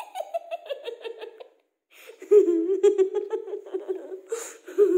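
A boy giggling, then after a brief pause about a second and a half in, laughing louder in quick, choppy bursts.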